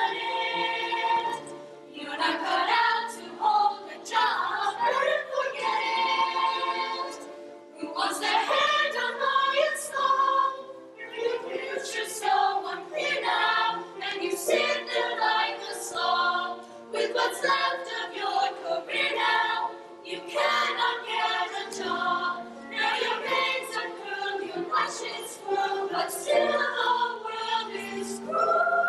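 A group of voices singing together in chorus into handheld microphones.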